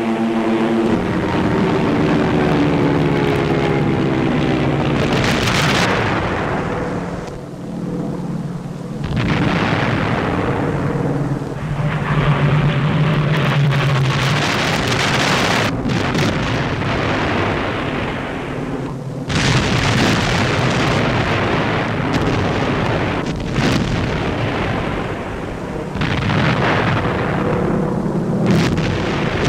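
Heavy artillery fire and bomb explosions from an old newsreel soundtrack: a continuous rumble that swells into a new heavy blast every few seconds, with one sharp crack about midway, over a low steady drone.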